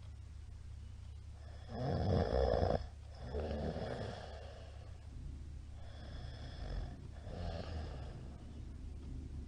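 Middle-aged man snoring in his sleep: one loud snore about two seconds in, followed by three softer snores, over a steady low hum.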